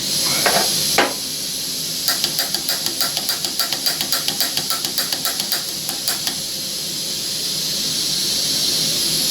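Gas hissing steadily from a camp stove burner while its piezo igniter is clicked rapidly, about five clicks a second for some four seconds starting about two seconds in, trying to get a spark to light it.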